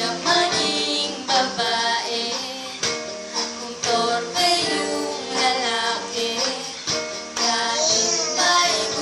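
A young boy singing, with instrumental music playing behind him.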